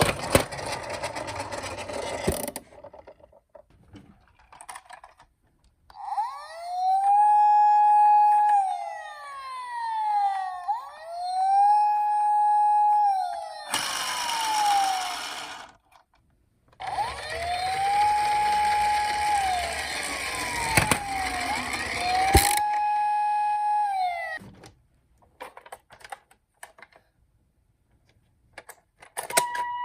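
Electronic siren of a toy emergency vehicle wailing: a tone that rises, holds and falls, repeating about every four seconds, in two spells. Between the spells come loud bursts of rattling noise and a few scattered clicks.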